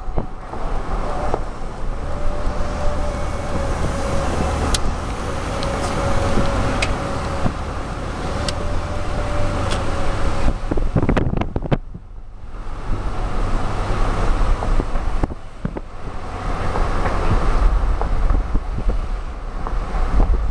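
Road noise from a moving car, heard from inside it, with wind buffeting the microphone. A faint steady hum sits under the noise for several seconds, and the noise drops away briefly about twelve seconds in.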